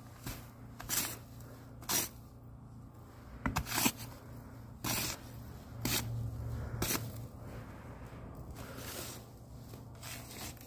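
A wooden stick raking and pushing loose-fill attic insulation aside, in a string of short scraping swishes roughly once a second, over a low steady hum.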